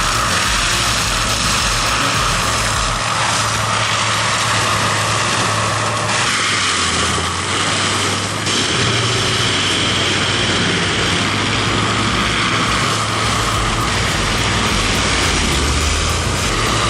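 Heavy forestry machinery running steadily, a large engine working under load; the sound changes character about six seconds in.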